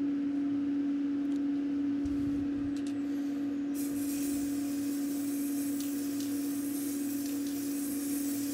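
Aerosol can of black ebonising lacquer spraying a thin coat onto a flat wooden panel: a steady hiss that starts about four seconds in. A steady low hum runs underneath throughout.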